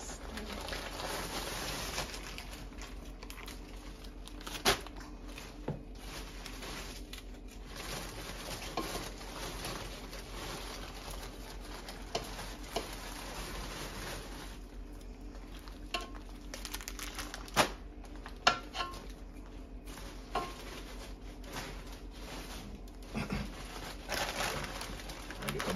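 A kitchen knife cutting red peppers held in the hand over an aluminium cooking pot, with scattered sharp clicks and taps as the knife and pepper pieces strike the metal pot. Near the end, a plastic bag rustles.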